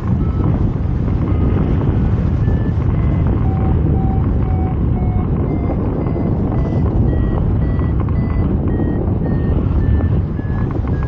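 A paragliding variometer beeping in a quick run of short tones. The pitch dips about four seconds in, then steps higher and stays high, signalling that the glider is climbing in lift. A steady rush of airflow on the microphone runs underneath.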